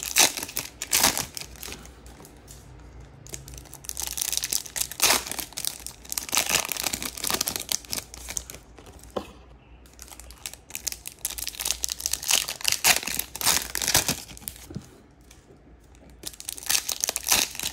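Foil wrappers of 2022 Topps Chrome baseball card packs being torn open and crinkled by hand. The crackling comes in several bursts with short pauses between.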